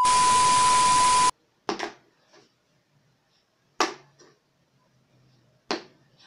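A burst of TV-static hiss with a steady beep tone for about a second and a half, then three short knocks of a felt-tip marker being flipped and landing on a tabletop, about two seconds apart; on the last one the marker lands standing upright.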